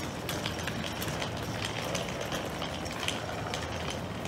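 Footsteps on a tiled floor, about two a second, over a steady low hum.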